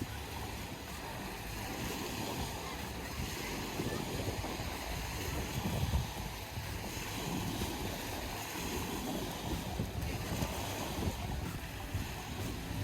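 Wind buffeting the microphone over small lake waves washing onto a sandy shore, a steady rushing hiss with uneven low rumbles.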